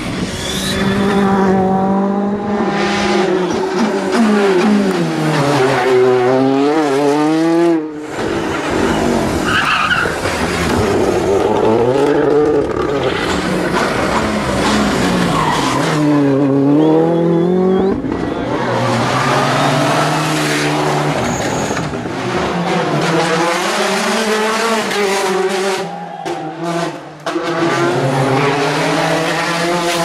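Rally cars driven hard through bends one after another: their turbocharged four-cylinder R5 engines rev up and drop back over and over as they shift through the gears. The sound breaks off sharply about eight seconds in, where the next car takes over.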